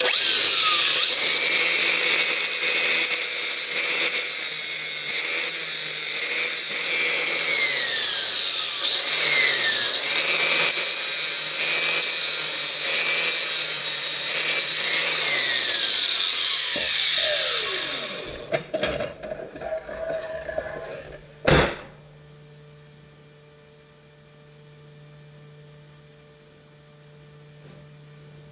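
Angle grinder with a flap disc grinding a steel quad-tip auger bit to put the cutting edge back on, loud and steady with the motor note dipping each time it is pressed in, for about 18 seconds. It then spins down, there is a single sharp knock about 21 seconds in, and a faint steady hum remains.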